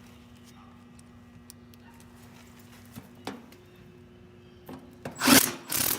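A faint steady hum that stops about three seconds in, followed by a slightly higher faint tone. Then two loud scraping rubs near the end.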